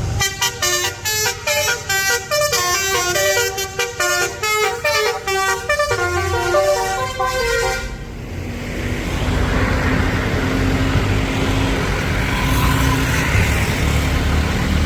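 A bus's Basuri V3 telolet horn plays a quick tune of short notes that jump up and down in pitch. It cuts off abruptly about eight seconds in, leaving a steady noisy rumble.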